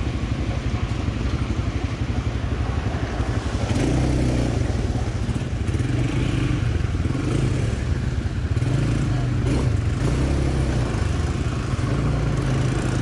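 Quad bike (ATV) engine running as it is ridden along a muddy trail and through puddles, its hum swelling and easing with the throttle.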